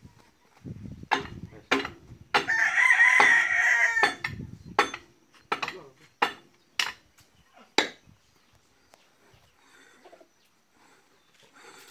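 A sledgehammer strikes the steel track of a Caterpillar D7 bulldozer about ten times at an uneven pace, to free a stuck track pin that a hydraulic ram is pushing. About two seconds in, a rooster crows once, loudly, for about a second and a half.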